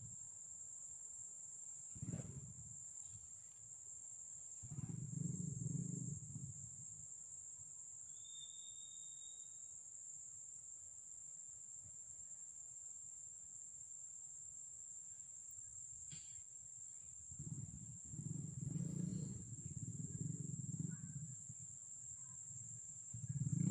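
Steady high-pitched insect drone, with a few low rumbling swells, one about five seconds in and a longer one near the end, and a brief whistle about eight seconds in.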